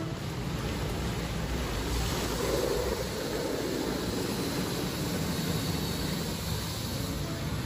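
Water jets of an automatic car wash spraying over the windscreen and windows, heard from inside the car as a steady rushing with a low rumble underneath.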